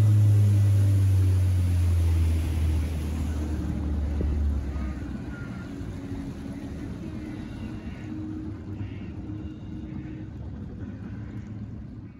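Boat outboard motor throttling down, its low pitch falling, then stopping about five seconds in; after that only quieter background noise remains.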